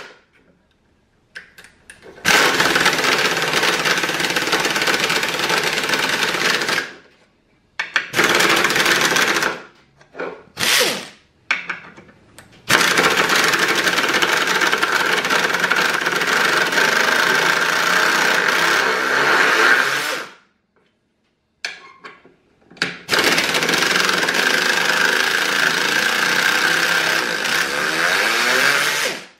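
Pneumatic 3/8-inch air ratchet running in long bursts with a steady whine, driving lag screws into a wooden board, with a few short blips of the trigger between the runs.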